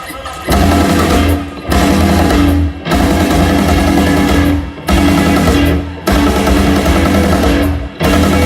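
Rock band playing live: electric guitar, bass and drums in a heavy stop-start riff, loud chunks broken by short pauses every second or two, with no vocals.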